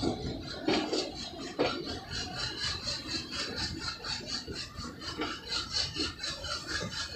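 Twin WDM3D ALCO diesel locomotives chugging in an even rhythm of about four to five beats a second, over the running noise of the moving train, with a couple of heavier thuds in the first two seconds.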